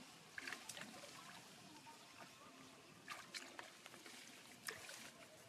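Faint water trickling and dripping as a hand works in the water among floating water hyacinth beside a wooden boat, with a few short splashes spread through.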